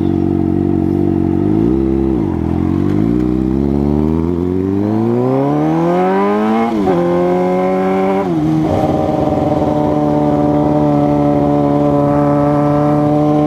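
2006 Suzuki GSX-R 600's inline-four engine accelerating hard. The pitch climbs through the revs, drops sharply at two upshifts about 7 and 8.5 seconds in, then holds steady at cruising speed.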